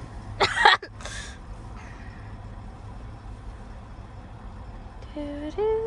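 Low steady background rumble of a car waiting at a drive-thru window. There is a brief loud voice burst about half a second in and a short pitched vocal sound near the end.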